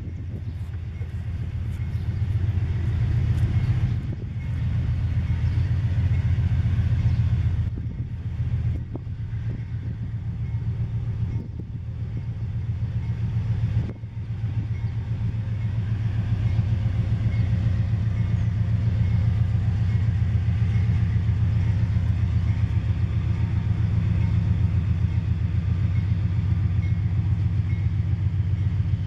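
Freight train's diesel locomotives approaching slowly, their engines a steady low drone that grows louder as they near.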